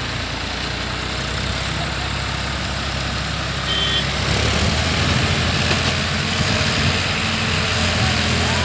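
Several diesel tractor engines running under heavy load as they pull a loaded sugarcane trailer together; the engine sound swells and grows deeper about four seconds in.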